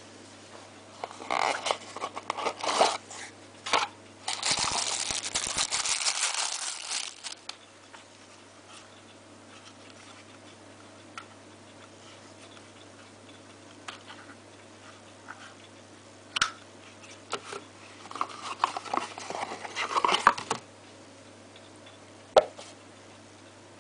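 Rustling and crinkling handling noise in three spells, with a few single sharp clicks between them and a low steady hum underneath.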